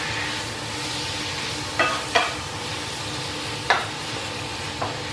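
Thin strips of beef sizzling as they brown in a skillet, stirred with a wooden spoon that knocks against the pan about four times.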